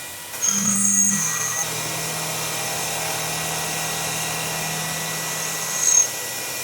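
CNC milling machine spindle starting up about half a second in, then running steadily with a high whine. A brief louder burst comes near the end.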